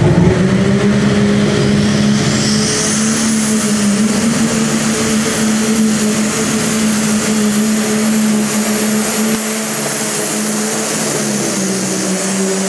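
Light Super Stock pulling tractor's turbocharged diesel engine running hard under load down the pulling track, a steady heavy drone throughout. A high whistle climbs over the first few seconds and then holds.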